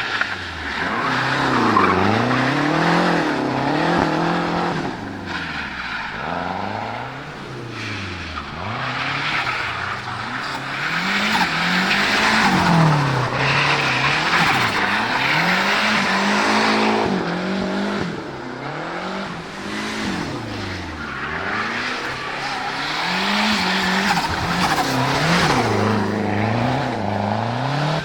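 Turbocharged four-cylinder engine of a 1974 Fiat 124 Spider Abarth being revved hard while drifting, its pitch rising and falling over and over as the driver works the throttle, with tyres squealing.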